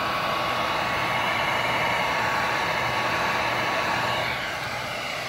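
Heat gun blowing steadily to shrink heat shrink tubing onto a wire, with a thin steady whine over the rush of air. It gets a little quieter about four seconds in.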